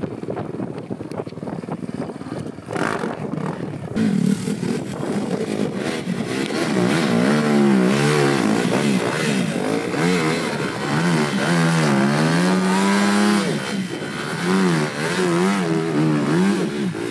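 A few seconds of wind noise, then an enduro dirt bike engine is revved hard over and over, its pitch swooping up and down, as the bike is worked up a steep rock step.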